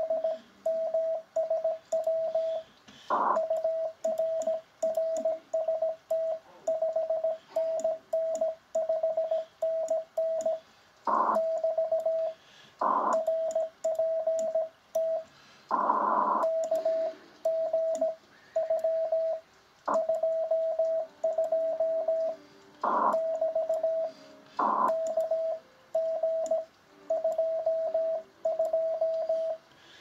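Morse code (CW) on a ham radio transceiver: a single steady tone of one pitch keyed on and off in dots and dashes, with a few short bursts of noise.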